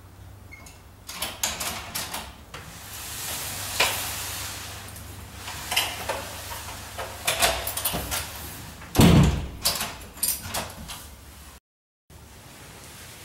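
Apartment front door being worked from inside: a series of lock and handle clicks, the door swinging open, then shut with a heavy thud about nine seconds in, followed by a few more latch clicks.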